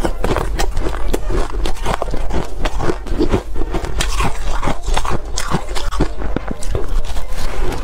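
A block of frosty, snow-textured ice being bitten and chewed right at a clip-on microphone: dense, irregular crunching and crackling.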